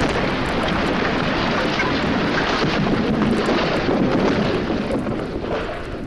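Rumbling rush of an explosion and its fireball, a dense steady roar that fades away near the end.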